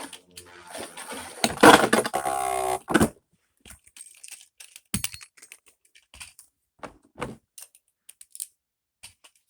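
Beyblade battle: a loud rattling launch with a short rising whir about two seconds in, then scattered light plastic clicks and clacks as the spinning tops knock against each other and the stadium.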